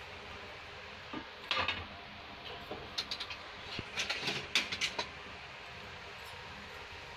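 Steel utensils clinking and scraping against a steel pot: a scattered run of light clicks and short scrapes, busiest a few seconds in.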